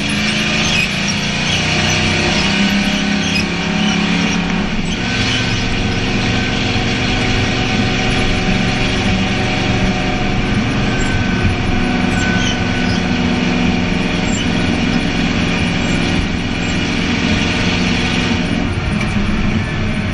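Short-track race car's engine heard from inside the cockpit, running loud and steady at racing speed. Its pitch shifts about five seconds in and again near the end.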